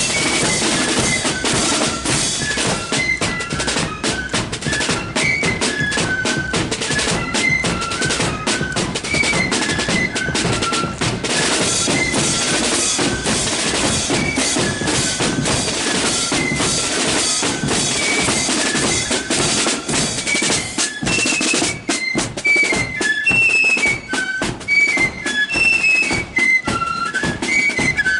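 Marching flute band playing a tune. Flutes carry a high, stepping melody over rapid snare-drum beats and a bass drum.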